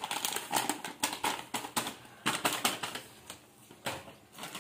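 Plastic packet of chilli powder crinkling and crackling as it is handled and emptied, in a run of irregular sharp clicks that thins out after about two and a half seconds.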